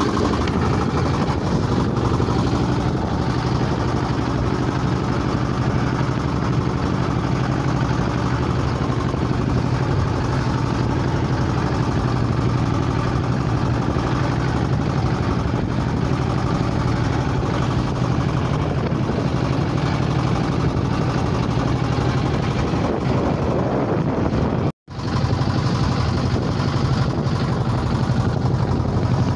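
Small fishing boat's inboard engine running steadily under way, a constant low drone over the rush of water and wind. About 25 seconds in, the sound drops out completely for an instant.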